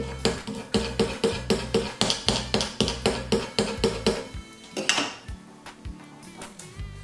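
Hands rubbing vinyl letters down onto a wooden board, with a metal bangle knocking and clinking against the wood about four times a second. It stops a little over four seconds in, over background music.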